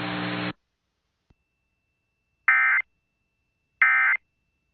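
EAS End-of-Message (EOM) SAME data bursts: two short, identical, buzzy digital screeches about 1.3 seconds apart, part of the three-burst sequence that closes the alert. Before them, the steady hiss and hum left over from the voice message cuts off half a second in.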